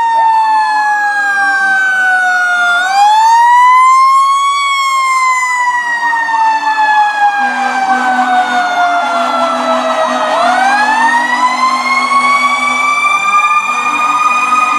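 Fire truck sirens as the trucks pass: one siren wails, falling slowly in pitch, rising again about three seconds in, then falling and rising once more near the end. A second siren warbles rapidly for a few seconds in the middle.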